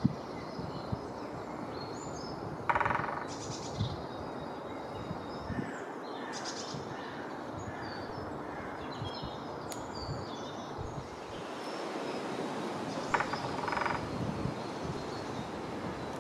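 Great spotted woodpecker drumming: two short, very rapid drumrolls of beak strikes on wood, about three seconds in and again near the end. Other birds call faintly over a steady outdoor hiss.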